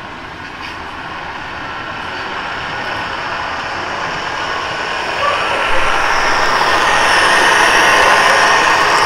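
HO scale model diesel locomotives pulling a freight train, running toward the microphone; the rolling, whirring train sound grows steadily louder as it approaches and is loudest in the last few seconds as it passes close by.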